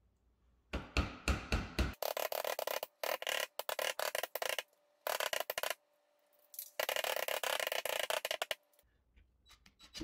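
A rubber mallet knocking a plastic ceiling fan box up into its hole in the drywall, about five heavy blows. These are followed by three longer bursts of rapid rasping clatter.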